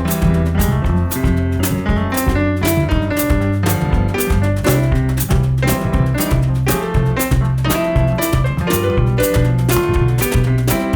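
Jazz piano trio playing live: piano, bass and drum kit in a Cape Jazz goema groove.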